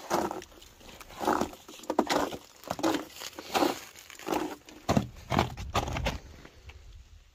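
Hiking boots crunching step by step on packed snow and frost covering the steel stair treads of a fire tower, about one step every three-quarters of a second, with a low rumble about five seconds in.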